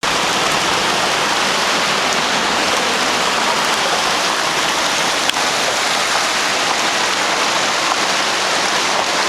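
Steady rushing of floodwater, an even loud wash of water noise, with a single short click about five seconds in.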